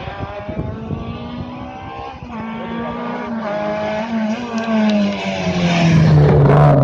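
Rally car engine approaching at speed through several gear changes, growing steadily louder as it nears and is loudest near the end.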